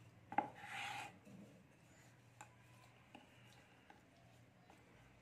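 A wooden rolling pin knocks once on a wooden rolling board and briefly scrapes and rolls over the dough just after, then a few faint taps as the dough is handled, over a low steady hum.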